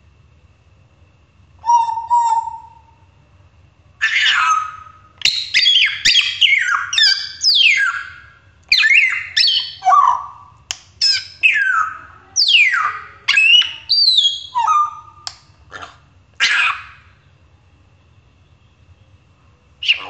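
African grey parrot whistling and calling. A short call about two seconds in, then from about four seconds a quick string of sharp, mostly falling whistles and squawks that stops about three seconds before the end.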